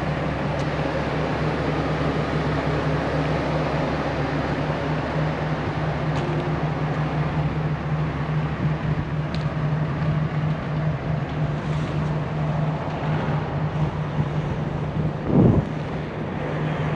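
Ford Super Duty bucket truck's engine idling steadily with an even low hum. A brief low thump comes about fifteen seconds in.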